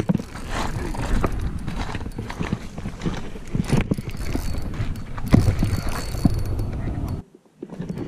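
Spinning rod and reel handled close to the microphone, the reel being worked by hand: irregular clicks and knocks over a low rumble. The noise cuts out suddenly about seven seconds in, then picks up again.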